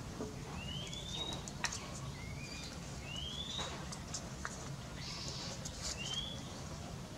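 Birds calling in the background: short rising chirps every second or two, over a steady low hum with scattered light clicks.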